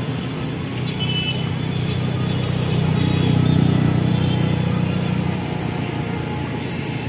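Road traffic: a motor vehicle passing close by, its low engine hum swelling to a peak about three seconds in, then fading.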